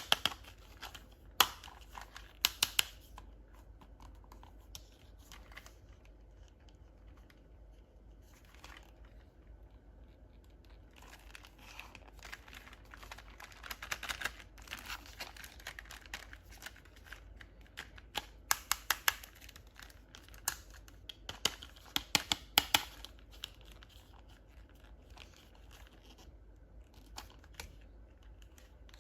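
Toy packaging being opened by hand: crinkling and tearing with scattered clicks and short runs of rapid clicks, several of them in the second half.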